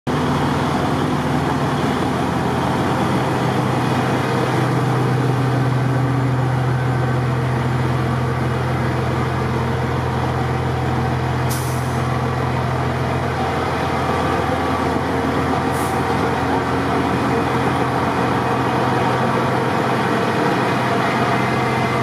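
Steady rumble of heavy truck engines with a low droning tone, and two short hisses about halfway through.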